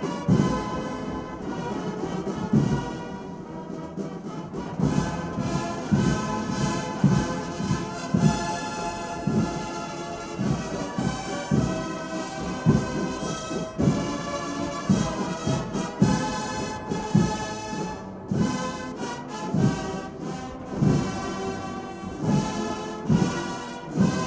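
A massed military brass band playing, with drum strokes repeating about once a second under the brass.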